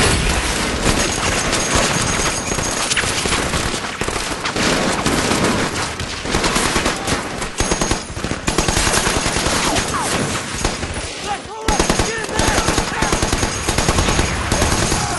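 Battle soundtrack of near-continuous machine-gun and rifle fire, dense and rapid, with a fast run of evenly spaced machine-gun bursts in the last few seconds.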